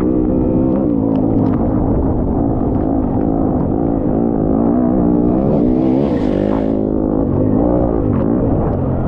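Off-road racing engine running under load, its pitch rising and falling repeatedly with throttle changes. A brief rushing hiss rises over it about six seconds in.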